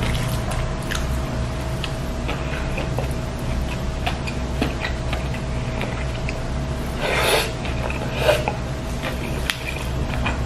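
Close-miked eating sounds of a meal eaten by hand: chewing and wet mouth noises with small clicks of fingers working rice, fried milkfish and sambal, over a steady background hum. A louder rustling noise comes about seven seconds in, and a shorter one a second later.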